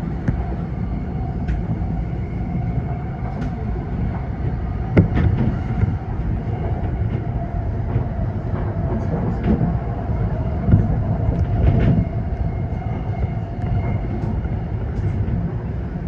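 Tokyo Metro 05 series train running at speed, heard from inside the leading car: a steady rumble of wheels on rail with a faint steady hum. A few sharp clacks from the rail joints come through in the second half.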